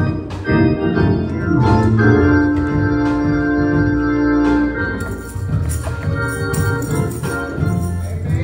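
Organ playing held chords, with percussive hits sounding throughout.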